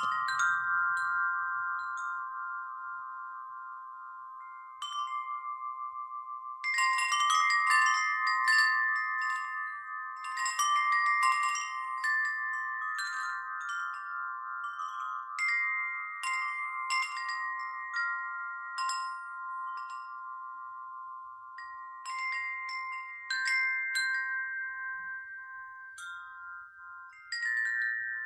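Wind chimes ringing: several clear metal tones overlap and ring on for seconds, with irregular bursts of fresh clinking strikes that are busiest around the first third.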